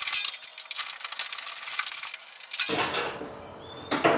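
A socket ratchet clicking rapidly with metallic clinks as bolts are worked loose on a truck's front clip; about two-thirds of the way through the sound turns fuller and lower.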